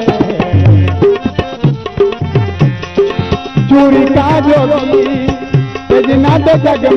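Saraiki folk music: hand drums keep a steady rhythm with low, pitch-bending bass strokes, under a wavering melody line.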